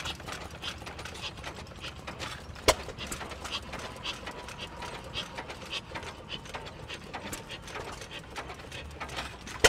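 Antique hit-and-miss gas engines running together, a dense irregular clatter of clicks and knocks from their valve gear and firing strokes, with one sharp pop about two and a half seconds in.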